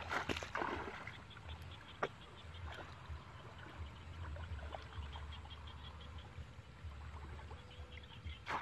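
Water splashing and sloshing as a person wades through shallow muddy water and plunges a bamboo basket fish trap, with the loudest splashes just after the start and another sharp splash near the end. Wind rumbles on the microphone, and a faint fast ticking runs in the background.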